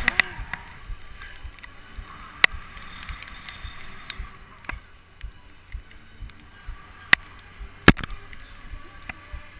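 Wind buffeting an action camera's microphone as a bungee jumper dangles on the cord, with scattered sharp clicks and knocks, the loudest about eight seconds in.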